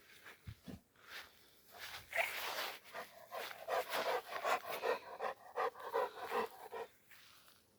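Cat vocalising: a breathy, hiss-like burst about two seconds in, then a quick run of short, rapidly repeated cries that stops about a second before the end.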